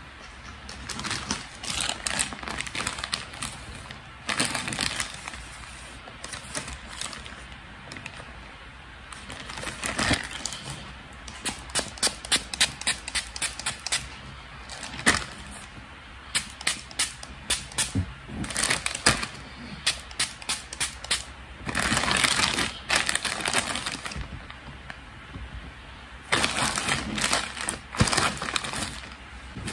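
Plastic courier mailer pouch handled and crinkled by hand: bunches of sharp crackles and clicks, with longer stretches of steady rustling in the middle and near the end.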